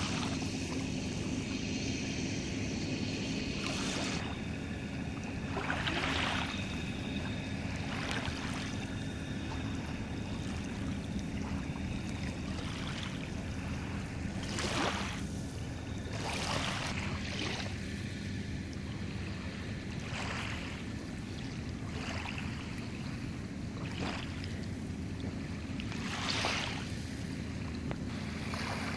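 Light rain falling on shallow lake water, with small waves washing in softly every couple of seconds over a steady low rumble.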